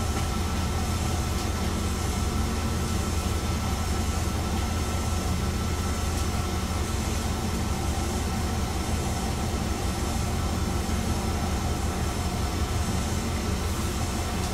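Chizu Express HOT3500 diesel railcar heard from inside the car: a steady, unbroken low drone of its engine and running gear, with a faint steady whine above it.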